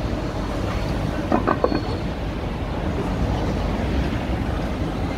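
City street ambience: a steady low traffic rumble with a brief clatter about one and a half seconds in.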